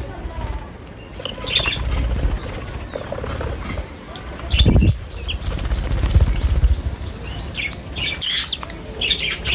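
Lovebirds chirping in short, scattered high calls, with a loud low rumbling flutter about halfway through.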